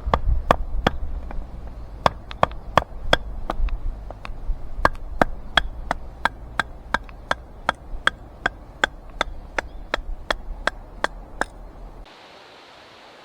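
Knife chopping on a cutting board: a steady run of sharp taps, about two to three a second, stopping shortly before the end.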